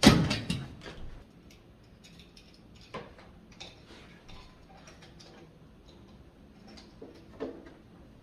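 Door lock hardware being handled and fitted: a thump at the start, then light scattered clicks and taps of the metal lock parts.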